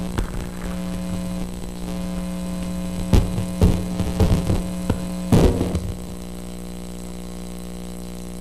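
Steady electrical mains hum in the audio feed, with a series of knocks and rustles from a handheld microphone being carried and handled. Just before six seconds in the handling stops and the level drops a step, leaving the hum alone.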